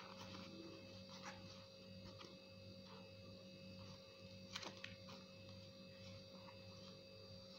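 Metal scissors snipping through faux leather (skai) with a fabric backing: a few short, spaced cuts, the sharpest a quick double snip about four and a half seconds in, over a steady low electrical hum.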